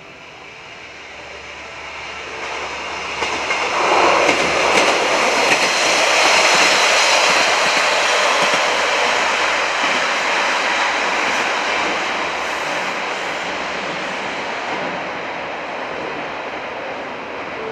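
A two-car KiHa 47 diesel railcar set passing through a station without stopping. The engine and wheel noise grows over the first few seconds, is loudest for several seconds as the cars go by, then slowly fades as the train moves away.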